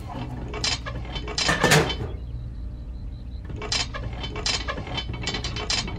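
Small metal and plastic parts of a model tractor's three-point hitch clicking and clattering as the arms are handled and fitted to a toy cultivator frame. The clicks are loudest about a second and a half in, and there is a low steady hum underneath.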